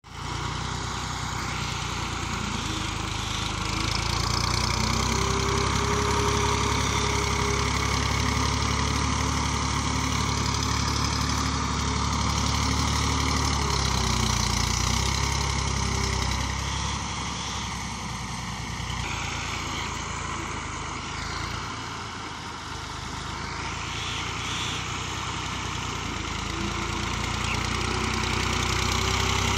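Massey Ferguson 240 tractor's three-cylinder diesel engine running steadily as it drags a rear blade through loose soil. It eases off for a few seconds past the middle, then picks up again near the end.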